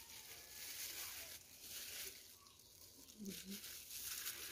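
Faint crinkling and rustling of thin disposable plastic gloves as hands handle bread and ham, with a few soft ticks.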